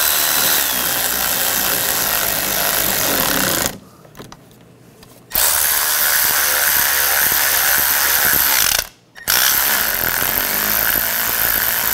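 Cordless electric ratchet running as it drives screws down, in three long spells: it stops for about a second and a half partway through, then again for a moment before running on.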